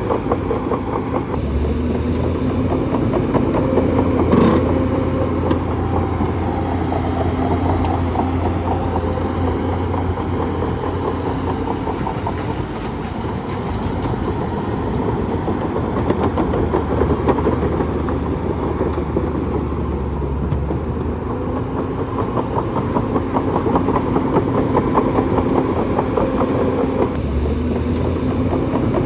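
Bulldozer's diesel engine running steadily under work, with one sharp knock about four and a half seconds in.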